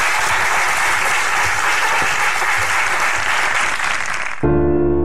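Studio audience applauding. The applause cuts off suddenly about four and a half seconds in, and piano music begins.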